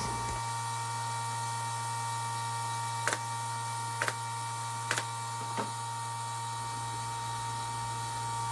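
Brad nailer firing four times, a sharp click about once a second, over a steady electrical hum.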